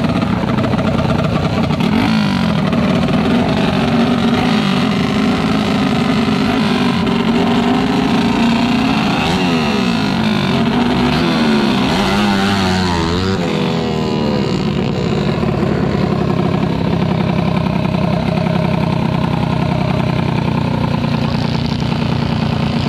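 Two tuned 125 cc trail-bike engines revving at a drag-race start line, their pitches rising and falling and crossing each other as the riders blip the throttles before the launch.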